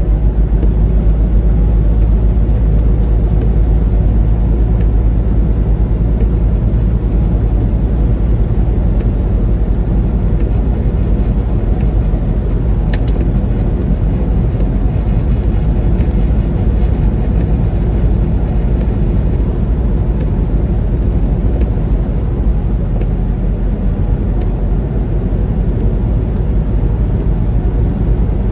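Semi-truck engine and road noise heard from inside the cab while driving: a steady low drone, with one short click about halfway through.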